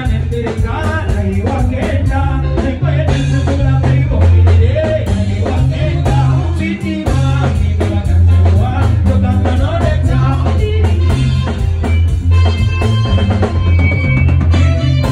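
Live band music: a man singing into a microphone over a drum kit, electric guitar and keyboard, with a heavy bass line and a steady beat.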